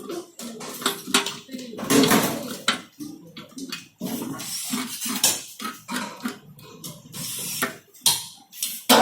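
Metal kerosene heater parts clinking and clattering as they are handled and fitted by hand, a string of irregular sharp knocks and clicks.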